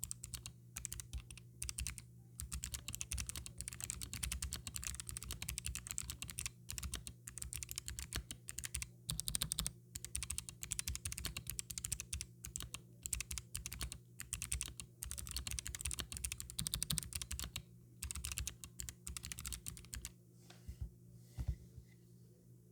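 Mechanical keyboard with Kailh Box Navy clicky switches on an FR4 plate and Corsair PBT double-shot keycaps, typed on in a fast, steady stream of sharp clicks. The typing thins to a few scattered keystrokes near the end.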